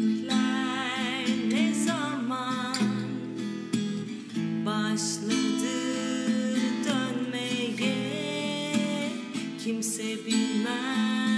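Acoustic guitar strummed and picked in a slow accompaniment, under a singing voice with vibrato that wavers through held notes.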